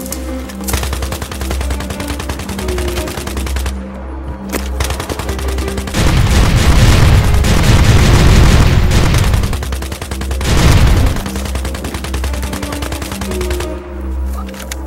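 Background music with a steady low beat. About six seconds in, a loud burst of rapid gunfire lasts about three seconds, and a second short burst follows about a second later.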